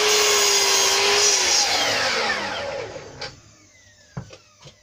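An electric power tool's motor runs at full speed, is switched off about a second in and spins down with a falling whine, coasting to a stop within about two seconds. A few light knocks follow near the end.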